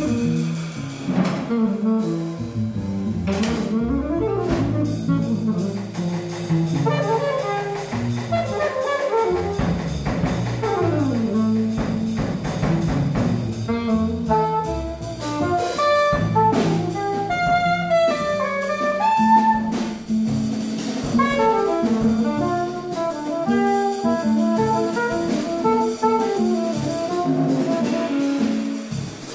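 Contemporary jazz quartet playing live, improvising: alto and tenor saxophones play shifting lines over double bass and drums, with frequent drum and cymbal hits.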